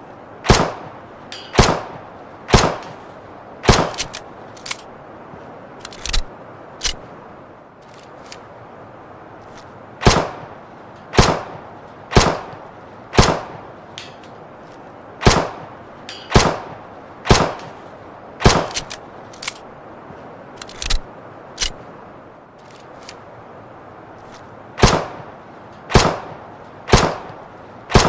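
Luger pistol firing single shots about a second apart, in strings of three or four separated by pauses of a few seconds. Fainter sharp clicks fall between some of the strings.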